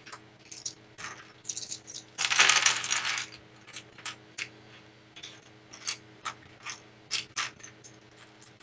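Loose plastic LEGO pieces clicking and clattering on a wooden table as they are picked through and sorted by hand. A denser clatter lasting about a second comes a little over two seconds in.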